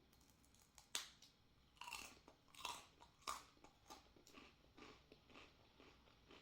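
Close-miked biting into a strawberry butter senbei rice cracker: one sharp crunchy bite about a second in, then steady crunchy chewing, a stroke about every half second.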